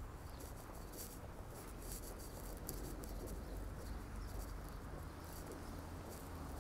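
Footsteps crunching on packed snow as someone walks, a crisp crunch a couple of times a second, over a low steady rumble.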